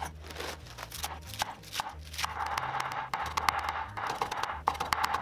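Chinese cleaver chopping vegetables on a wooden cutting board: a quick run of sharp chops, growing denser about two seconds in.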